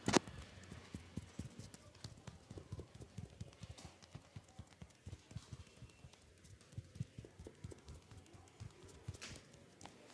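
Hands tapping and patting on a person's head and body in a massage: a quick, uneven run of soft, dull thuds, several a second, with one sharper smack right at the start.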